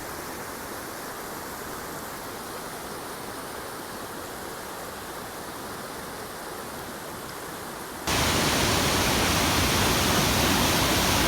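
Steady rush of water from a waterfall. About eight seconds in it cuts suddenly to a louder, fuller rush of falling water.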